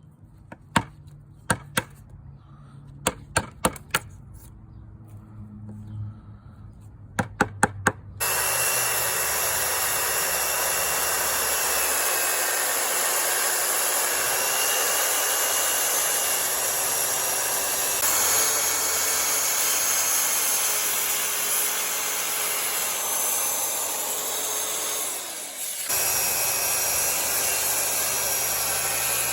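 A handful of sharp knocks in small groups, then a power tool starts about eight seconds in and runs steadily with a constant whine, dipping briefly once before running on.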